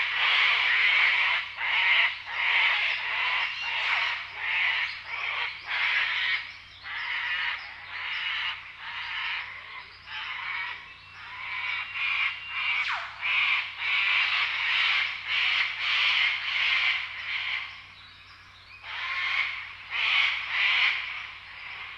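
Forest ambience filled with a dense chorus of repeated raspy animal calls, about two a second, with a brief lull near the end.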